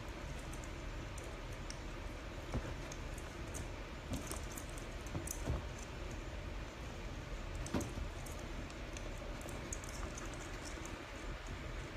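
Scattered light taps and rustles of an Old English Sheepdog puppy pawing and nosing a battery-powered ball toy on a fabric dog bed, over a steady background hiss.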